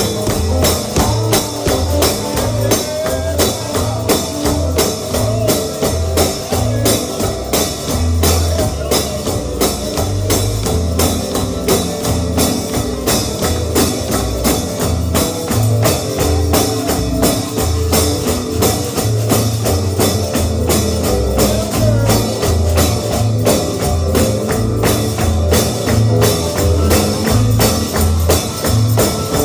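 Gospel music with a tambourine keeping a steady beat, about three hits a second, over a pulsing bass line.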